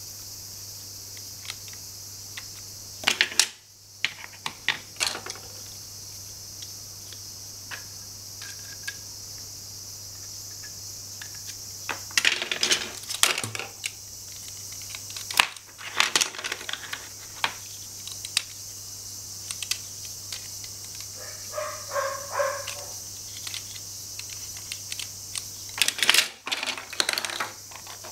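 Plastic and wooden toy tool pieces clicking and clattering as they are handled and fitted together, in scattered groups of sharp clicks, with a short squeaking stretch about three-quarters of the way through. A steady hiss and low hum lie underneath.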